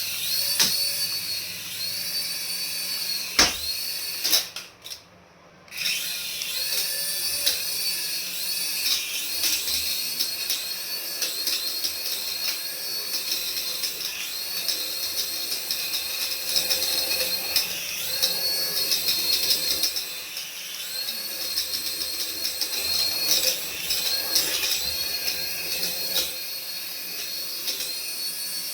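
Small electric motor of a radio-control toy whining at high pitch, its pitch rising and falling over and over as the throttle is worked, cutting out briefly about five seconds in.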